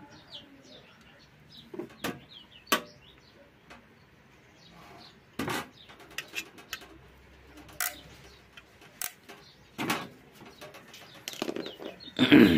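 Birds chirping faintly in the background, with about eight sharp clicks and knocks scattered through it and a louder, voice-like pitched sound near the end.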